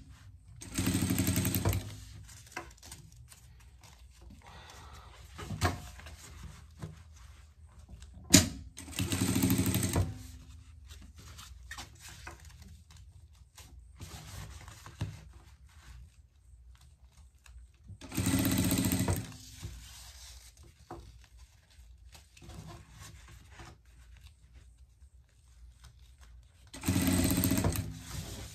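Electric sewing machine stitching in four short runs of about a second each, with pauses between while the raincoat fabric is repositioned. Sharp clicks and light fabric rustling fill the gaps.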